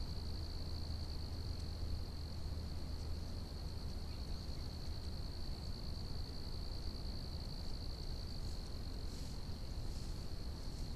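Steady insect chorus, a continuous high-pitched trill, over a constant low rumble, with a few faint ticks near the end.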